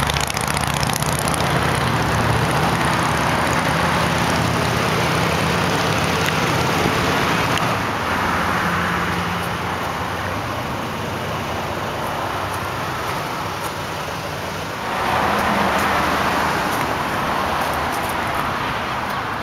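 Road traffic from a nearby highway: a continuous rush of passing vehicles that eases off a little partway through and swells louder again about three-quarters of the way in.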